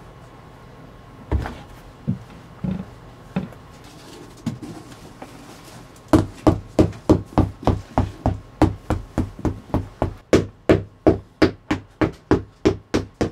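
Shoemaker's hammer striking: a few separate blows, then from about six seconds in a fast, even run of about three blows a second.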